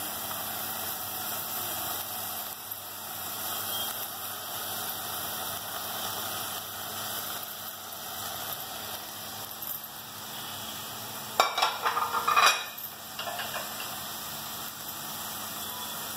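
Chopped onions sizzling steadily in oil in a steel pot as stuffed brinjals are placed in. About three-quarters of the way through comes a short run of loud clatters of dishes against steel.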